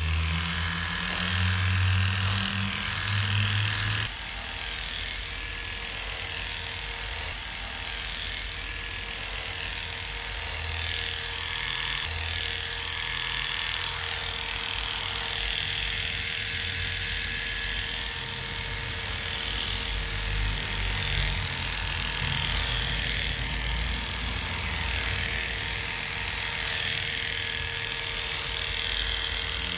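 Heiniger electric grooming clipper running with a steady hum as it shaves through a dog's heavily matted coat. Low notes sound under it for the first four seconds, then stop.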